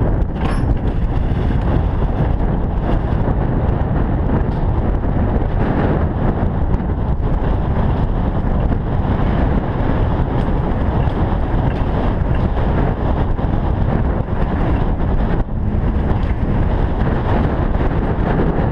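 Steady wind noise on the microphone mixed with an alpine coaster sled's wheels rolling along its metal rails as it runs downhill.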